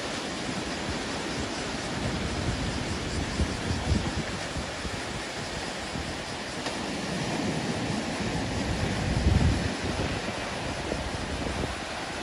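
Ocean surf washing steadily, with wind buffeting the microphone in low rumbling gusts, the strongest about three quarters of the way through.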